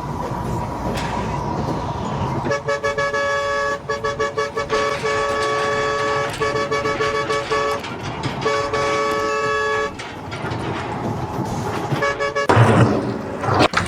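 Vehicle horn honking repeatedly: a run of rapid short toots, then several longer held blasts, stopping about ten seconds in.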